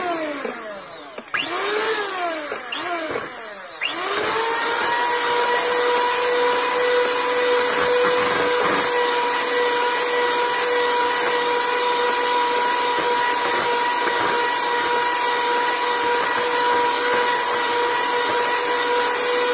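Bella 10-speed electric hand mixer beating thick cake batter. For the first few seconds its motor whine rises and falls in pitch, then it settles into a steady whine.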